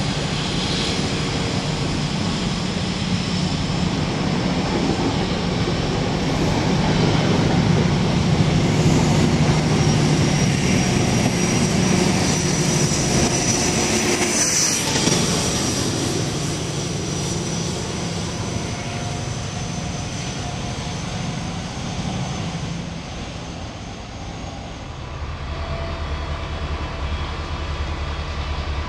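InterCity express train of Mark 3 coaches passing at speed: steady wheel-and-rail rush with a high whine that builds to a peak about halfway through. Near the end the sound changes to a freight train of wagons rumbling by.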